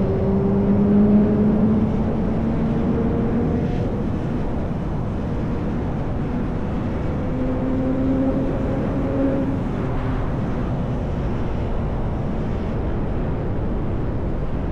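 Motorcycle engine cruising under a heavy low rumble of wind and road noise. Its tone rises gently twice, as if throttling on slowly.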